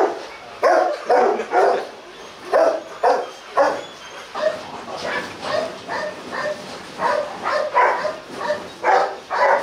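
A dog barking in short, repeated calls, about two a second.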